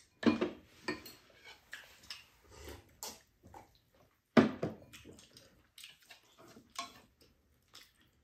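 Chopsticks and bowls clinking and knocking against a pan and dishes during a meal of glass noodles, mixed with eating sounds. Short, irregular knocks, with two louder thumps: one just after the start and one about four and a half seconds in.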